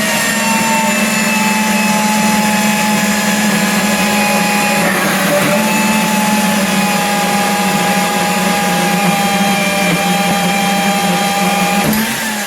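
Angle grinder running steadily at full speed on steel, with a high motor whine over a harsh hiss, then spinning down with falling pitch at the very end.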